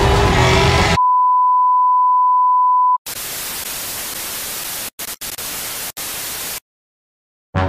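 A chainsaw engine runs and cuts off suddenly about a second in. It is followed by a loud, steady, high-pitched beep lasting two seconds. Then comes a TV-static hiss for about three and a half seconds, broken by a few brief dropouts, and music starts right at the end.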